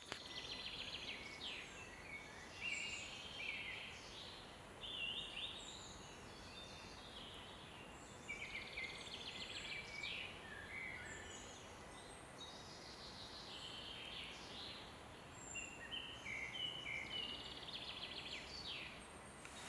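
Woodland birdsong: several small birds singing at once, with quick trills and short whistled phrases, over a faint steady hiss.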